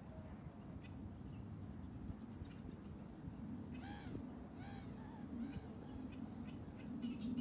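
A bird calls three times in quick succession about four seconds in, each call a short arched note, with a few fainter calls after. A steady low rumble runs underneath.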